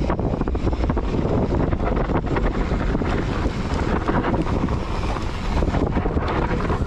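Wind rushing over the action camera's microphone while riding a mountain bike fast down dirt singletrack. Under it run the rumble of the knobby tyres on the trail and frequent rattling clicks and knocks from the bike over bumps.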